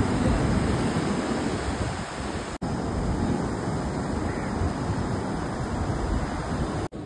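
Surf of a rough sea breaking on the beach, mixed with wind buffeting the microphone, a steady low rumbling noise. It drops out for an instant twice.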